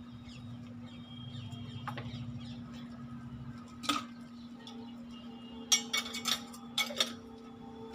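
Handling of a spray gun's metal paint cup: a single sharp knock about four seconds in as the paint bottle is set down, then a quick run of metallic clicks and clinks as the cup's lid is fitted and tightened. A faint steady hum lies underneath.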